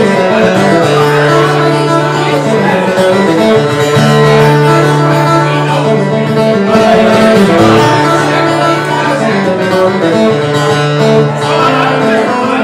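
Live acoustic guitar and a Roland RD-700 stage piano playing a tune together, with long held low notes that change every few seconds.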